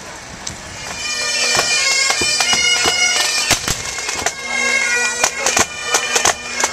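Pipe band playing: bagpipes sounding a melody over a steady drone, with sharp drum strokes. It swells up louder about a second in.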